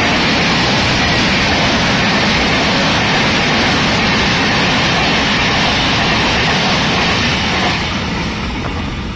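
Shatabdi Express passenger coaches running through the platform at speed without stopping: a loud, steady rush of wheels and air. It eases off near the end as the last coach clears.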